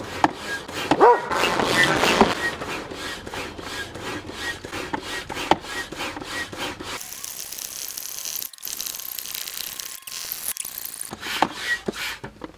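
Hand pump being worked up and down in quick repeated strokes, pushing air into an inflatable stand-up paddle board, each stroke a rubbing rush of air. A steady hiss joins the strokes past the middle for a few seconds.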